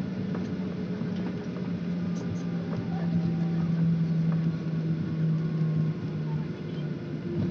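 Boeing 737's jet engines heard from inside the passenger cabin as the airliner taxis: a steady rushing hum with a low droning tone that dips slightly in pitch near the end.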